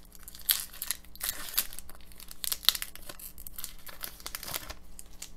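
Plastic wrapper of a hockey card pack being torn open and crinkled in the hands: a run of irregular crackles and rustles.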